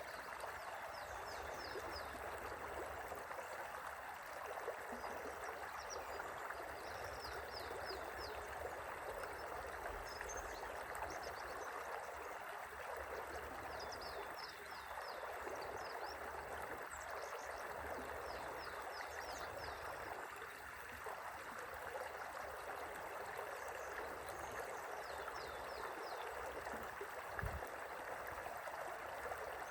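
River water flowing steadily over a gentle current, an even rushing and gurgling. Runs of quick, high chirps come and go every few seconds above it, and a brief low thud sounds near the end.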